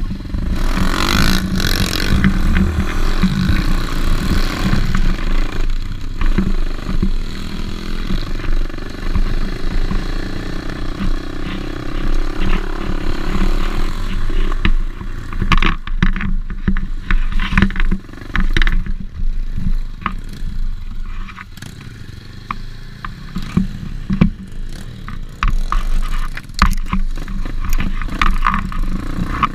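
Pit bike engine running while riding over rough forest ground, with frequent rattles and knocks from the bike over the bumps. It eases off for a couple of seconds about two-thirds of the way through, then picks up again.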